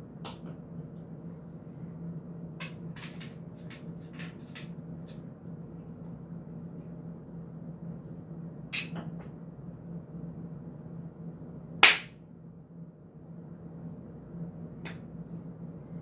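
Scattered clicks and knocks of small camera quick-release plates and clamps being handled, fitted together and set down on a tile floor. A cluster of light clicks comes near the start, and one sharp knock, the loudest, comes about twelve seconds in. A steady low hum runs underneath.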